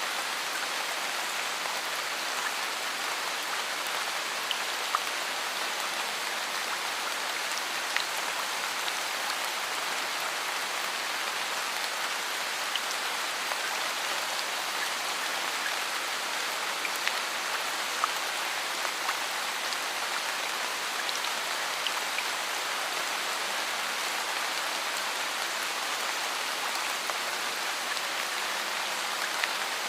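Steady rain falling, an even patter with scattered louder drop hits.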